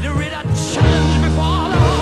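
Music: a song with held bass notes that change every second or so and a wavering melody line above them.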